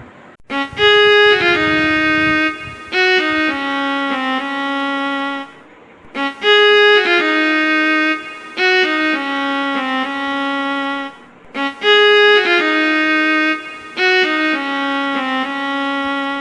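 Music: a short melody of held, sliding notes, the same phrase played three times with brief gaps between.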